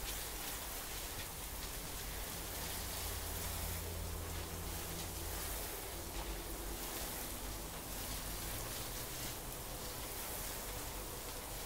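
Pistol-grip garden hose nozzle spraying a steady shower of water onto loose composted soil, watering in freshly applied liquid fertiliser.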